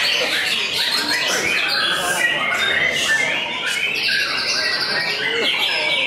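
White-rumped shamas (murai batu) singing, several birds' songs overlapping in a dense, unbroken mix of whistles, trills and chirps.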